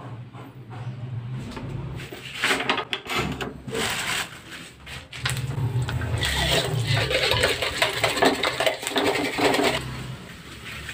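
Hot oil sizzling and crackling in a wok on a gas stove as food fries, in two stretches, the second, starting about halfway through, longer and louder, as an egg goes into the oil.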